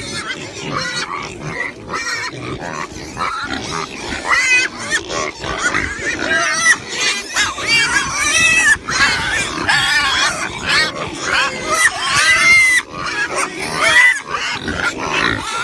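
Pigs squealing and grunting: many short, overlapping high-pitched calls that grow denser about four seconds in.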